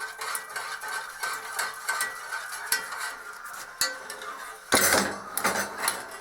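A utensil stirring and scraping in a pan of cooking sugar syrup, with repeated small clinks and scrapes. About five seconds in comes a louder, rougher clatter lasting about a second.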